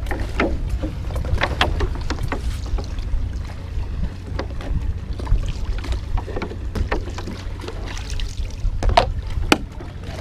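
A cutlass fish being cleaned and washed at the water's edge: short, irregular scrapes, knocks and splashes over a steady low rumble of wind on the microphone.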